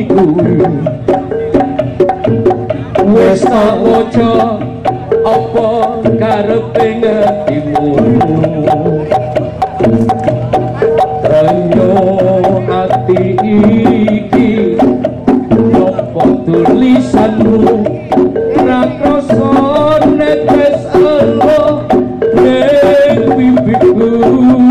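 Javanese folk music: drums and struck wooden percussion keep a dense, steady beat under a wavering melodic line.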